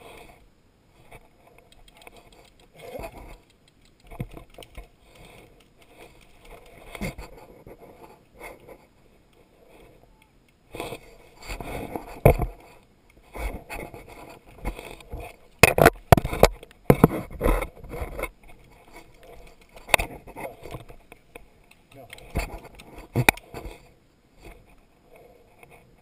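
Tall dry weeds and brush rustling and scraping against clothing and gear as someone pushes through them. Irregular sharp snaps and knocks are heard, sparse at first and denser and louder through the middle.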